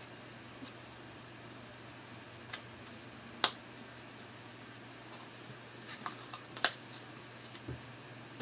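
Sparse clicks and taps of cardboard game dials and their plastic connector buttons being handled and fitted together. There are two sharper clicks, one near the middle and another about three seconds later, with a small cluster of lighter ticks between them and a soft thump near the end.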